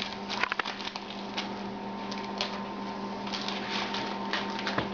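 Quiet room tone, a steady hiss with a low hum, broken by scattered light clicks and crackles, thickest in the first second.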